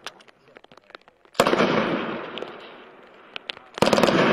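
Two short bursts of belt-fed machine-gun fire, about two and a half seconds apart, each trailing off in a long echo.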